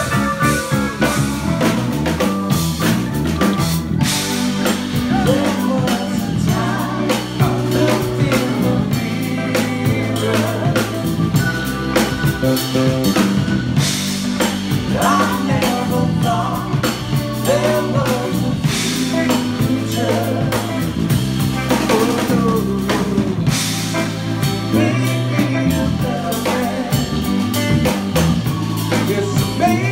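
Live band playing with drum kit, electric bass, electric guitar and keyboard, and a lead vocal sung over the top.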